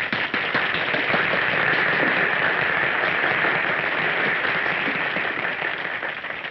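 An audience applauding on a 1930s film soundtrack: dense, steady clapping that eases off slightly near the end.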